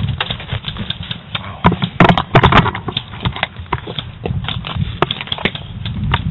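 Irregular clicks and knocks with a low rumble: footsteps and handling noise on a rifle-mounted camera as the gun is carried and moved. The clicks come thickest about two seconds in.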